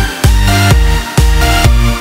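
Electronic dance music with a heavy bass line and a steady beat, about two beats a second.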